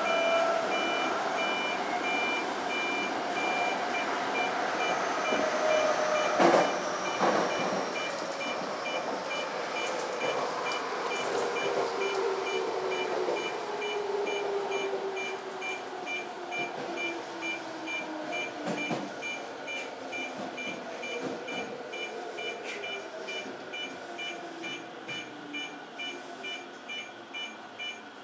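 Toyo Rapid Railway 2000 series electric train braking toward a stop, its motor whine falling slowly in pitch as it slows. There is a single knock about six seconds in, and a repeating high electronic beep sounds over it.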